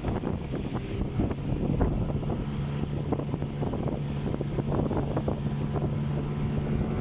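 Motorboat engine running at a steady pitch, with wind buffeting the microphone.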